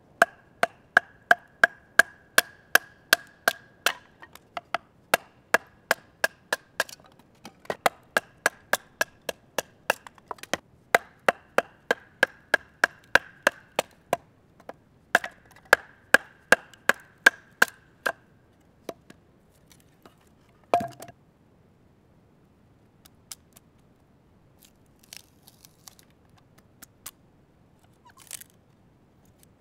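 ESEE-5 fixed-blade knife being batoned through a stick of firewood: a piece of wood strikes the blade's spine in runs of sharp knocks, about two to three a second, each with a brief ringing note, broken by short pauses. The knocking stops after about eighteen seconds; one heavier knock follows, then faint ticks and a short crack of the wood splitting near the end.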